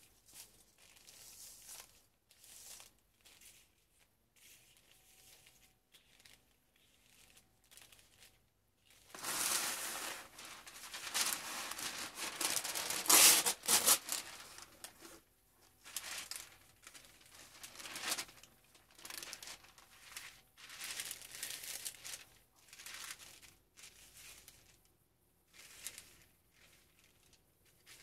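Parchment and kraft paper crinkling as sheets are handled and laid over strung leaves, with a dense stretch of loud crinkling near the middle and shorter rustles of paper and leaves on and off after it.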